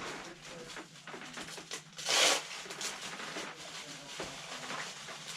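Handling noise of unpacking: light knocks and clicks, with one short loud rustle of wrapping material about two seconds in.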